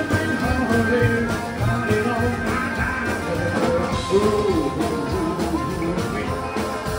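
Live rock-and-roll blues band playing: harmonica over electric and acoustic guitars, upright bass and a steady drum beat, with singing.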